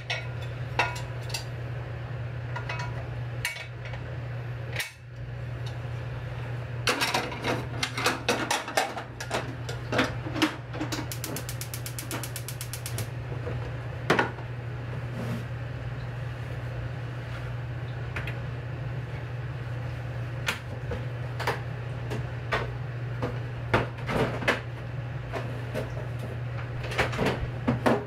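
Kitchen food-preparation sounds: scattered clicks and clinks of utensils and dishes, with a quick run of even ticks lasting about two seconds near the middle, over a steady low hum.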